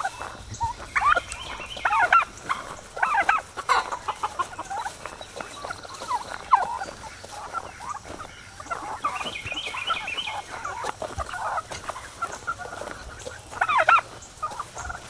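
A flock of chickens clucking and calling, with a white tom turkey gobbling among them. The calls come in short, scattered runs, with a longer run about nine seconds in and another near the end.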